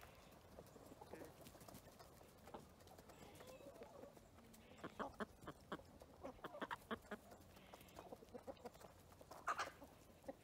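Chickens clucking faintly, with a run of short clucks and pecking clicks in the middle and one sharper sound near the end.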